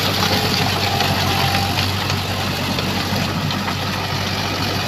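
Swaraj 843 XM tractor's three-cylinder diesel engine running steadily under load, driving a rotavator through wet paddy mud.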